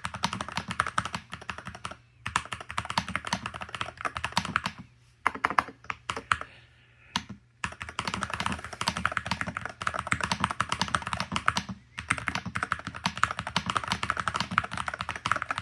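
Typing on a Womier SK75 TMR hall-effect keyboard with Otemu T magnetic switches and PBT keycaps in a foam-dampened aluminium case: quick runs of key clicks broken by several brief pauses.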